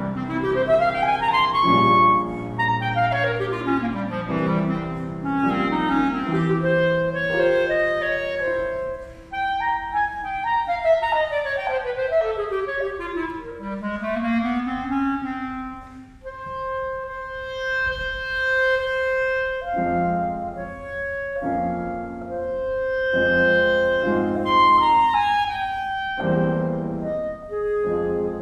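Clarinet and piano playing together. The clarinet plays a lively melody with fast runs up and down, including a long descending run about halfway. In the second half it holds long notes over repeated piano chords.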